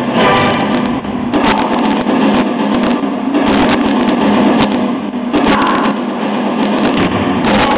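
Loud, distorted recorded music accompanying the dancers, heard through a camcorder microphone, with scattered sharp knocks through it.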